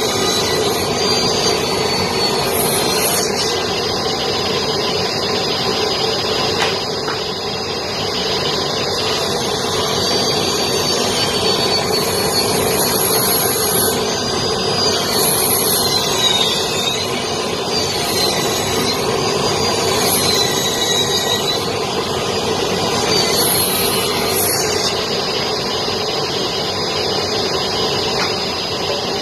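Woodworking table saw running steadily as boards are fed through it, its high whine dipping and recovering several times as it cuts, with short bursts of high hiss.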